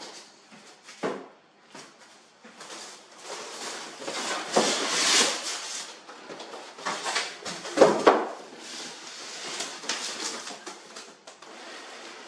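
A foam packing insert and cardboard box being handled as the box is unpacked: rustling and scraping of foam against cardboard, with a few knocks, the loudest about eight seconds in.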